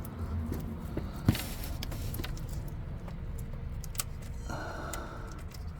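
A few small metallic clicks and taps as a nut is handled and threaded by hand onto a starter mounting bolt, the sharpest about a second in, over a steady low background rumble.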